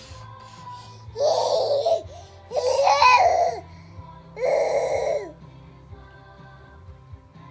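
A toddler's voice in three loud, drawn-out calls, each about a second long, over music playing in the background.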